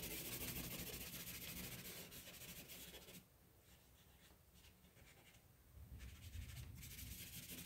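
Faint rubbing on drawing paper as graphite powder is blended into a pencil drawing. The rubbing stops for about two and a half seconds midway, then resumes.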